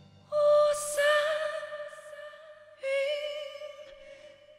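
TV drama theme song: a high voice sings two long held notes with slight vibrato over soft accompaniment. The first enters about a third of a second in and the second near three seconds in, and each fades away.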